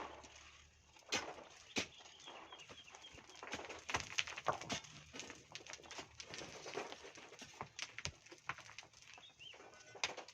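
Irregular knocks and scrapes, with a bird chirping faintly: a quick run of chirps about a quarter of the way in and a single call near the end.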